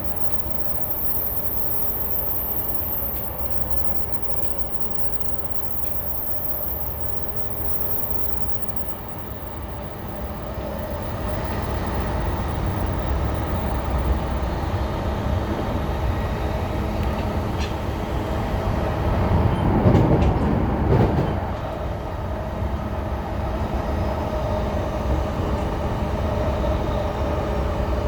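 Cabin running sound of a JR East E233 series 0 electric train under way: a continuous rumble of wheels on rail with faint steady motor tones. It grows louder from about ten seconds in, with a brief louder rush about twenty seconds in.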